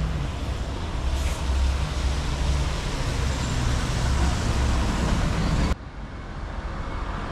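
Road traffic: a motor vehicle's engine running close by with a low rumble over general street noise. The sound drops abruptly about two-thirds of the way through to quieter traffic ambience.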